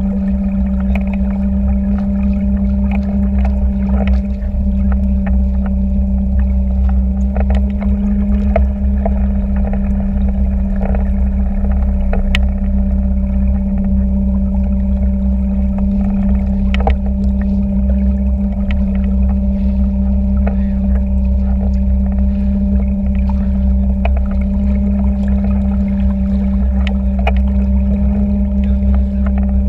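Small boat's motor running steadily at low speed while towing, a constant low hum that does not change in pitch.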